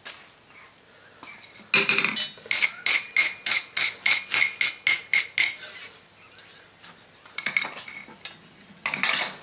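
Hand hammer striking hot mild steel on an anvil: a run of about a dozen quick, even blows, about four a second, each with a metallic ring, followed by a few softer metal scrapes and knocks.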